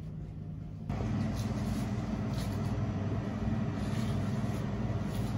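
Steady low hum and rumble of refrigerated glass-door freezer cases, stepping up suddenly louder about a second in and holding steady.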